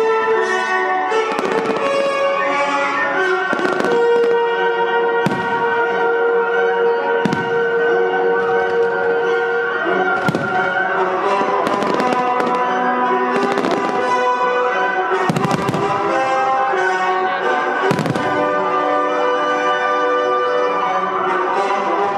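Firework shells bursting every few seconds over orchestral music with long held notes.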